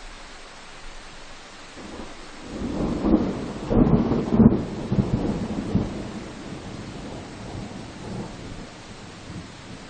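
Steady hiss of rain in a forest, with a loud low rumble swelling about two seconds in, peaking around four seconds and dying away by about seven seconds.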